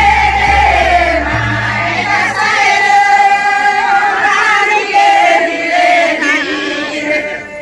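A group of voices singing a Karam festival song together in long, wavering notes, with a low bass line underneath for the first second or so.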